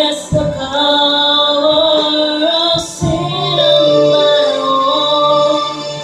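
A small group of men and women singing a gospel worship song in harmony, holding long notes, with short breaks between phrases just after the start and about three seconds in.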